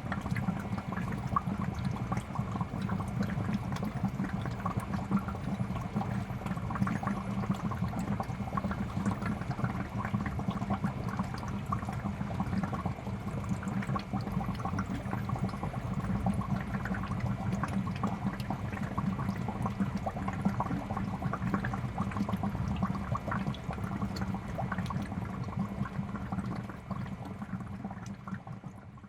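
Fish tank water bubbling and trickling steadily, with many small pops over a low steady hum. It fades out near the end.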